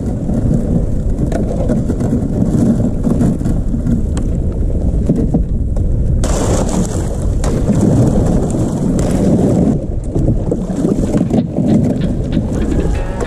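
Kayak hull pushing through thin skim ice: a loud, continuous crunching and crackling as the ice breaks against the boat.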